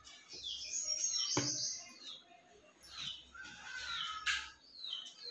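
Small birds chirping repeatedly in short falling calls. There is a single knock about a second and a half in and a brief rustle near the end.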